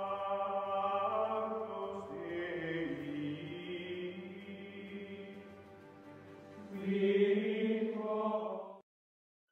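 Background music of long held notes that change pitch every second or two, swelling about seven seconds in and cutting off abruptly near the end.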